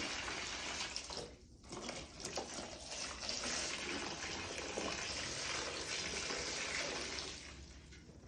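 Water running from a tap, drawing water for mopping, with a short break about a second and a half in and tailing off near the end.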